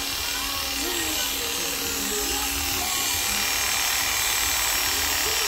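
Electric hair clipper buzzing steadily as it cuts a short fade along the side of the head, with faint music in the background.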